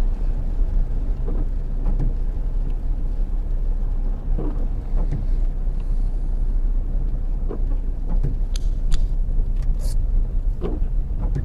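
Car cabin noise while driving on a wet road: a steady low rumble of engine and tyres, with a few sharp clicks about nine seconds in.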